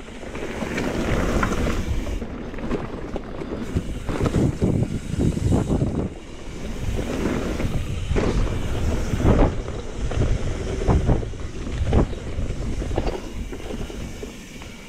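Wind rushing over a GoPro's microphone as a mountain bike rolls fast down a dirt singletrack, with repeated knocks and rattles from the bike over bumps.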